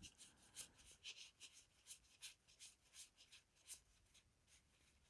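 Faint, short swishes of Yu-Gi-Oh! trading cards being slid and flipped through by hand, about ten in the first four seconds at an uneven pace, then near silence.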